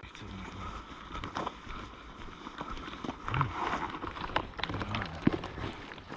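Footsteps of people walking, an uneven run of crunches and knocks.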